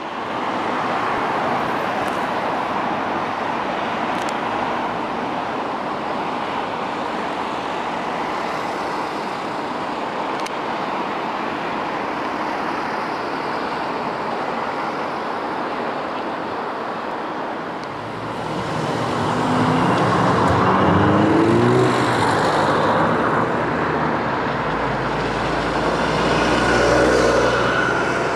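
Street traffic: a steady wash of road noise, with one vehicle's engine rising in pitch as it pulls away about two-thirds of the way through, and a deep low rumble of an engine near the end.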